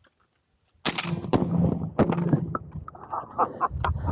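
Shotgun fired twice in quick succession about a second in, sharp reports at a dove.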